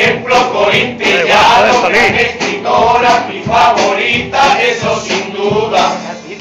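A chirigota carnival group singing a comic song in chorus, several male voices together.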